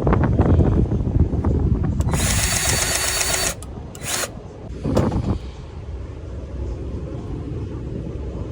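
A power tool runs in one burst of about a second and a half, then once more briefly, over a steady low rumble, with a few knocks just before.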